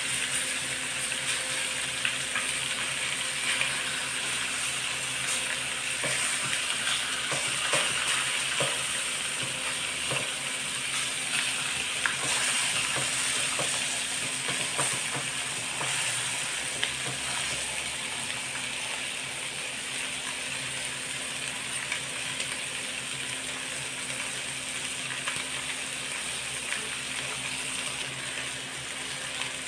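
Slices of pork liver frying in a wok, a steady sizzle, with a few sharp clicks of metal tongs against the pan as the pieces are turned. They are being cooked until no more blood seeps out.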